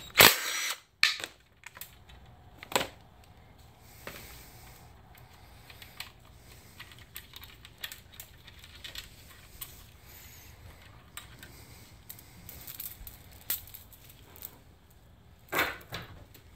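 A cordless driver briefly runs a bolt out of the engine's timing chain guide, then scattered small metal clicks and clinks as the loosened bolts and guide are handled. A sharper clack comes about three seconds in and another near the end.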